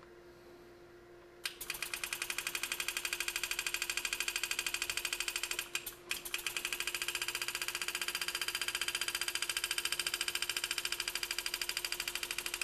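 Pneumatic power-assist engraving handpiece hammering a graver through a metal plate while making a flare cut: a rapid, even ticking that starts about a second and a half in, stops briefly near the middle, then runs on. A faint steady hum sits underneath.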